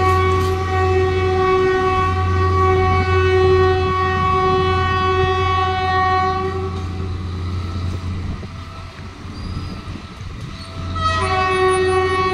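Train horn of a departing Philippine National Railways 203 series train, held in one long steady blast for about seven seconds, then sounding again near the end, over a steady low hum.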